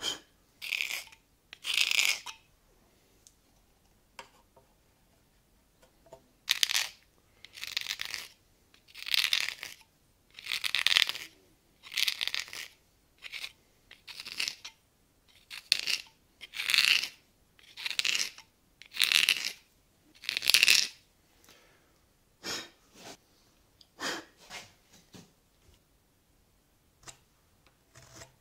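Knife paring the end of a wooden horn stem: more than a dozen rasping slicing strokes, about one a second. A few shorter, lighter cuts follow near the end.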